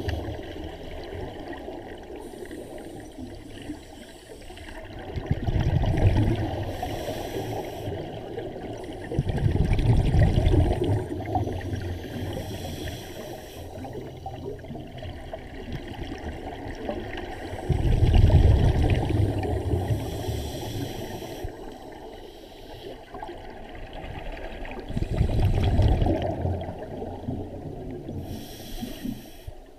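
Scuba diver breathing through a regulator underwater: a short hiss on each inhalation, then a low, bubbling rush of exhaled bubbles, four breaths in all.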